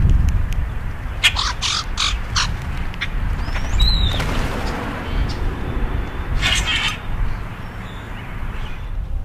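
Grackles calling: a run of sharp, clicky notes, then a short rising squeak, as the flock takes off from the ground about four seconds in, with another rough call later. A steady low rumble lies under it all.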